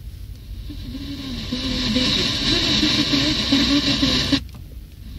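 Car radio tuned to a weak FM signal at 102.7 MHz: a station's programme comes through faintly under static hiss, swelling over the first two seconds, then cuts off suddenly about four seconds in. A steady low car rumble runs underneath.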